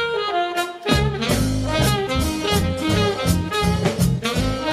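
Swing jazz led by saxophone: a short sax phrase, then about a second in the full band comes in with drums, a repeating bass line and brass.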